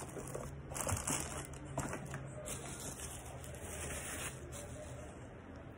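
Bubble wrap around a microphone rustling and crinkling as it is handled, with a few light knocks. It fades down about four seconds in.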